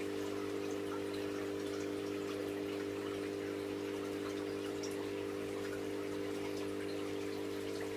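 Aquarium filter pump running: a steady electric hum with water trickling and dripping, flecked with tiny ticks.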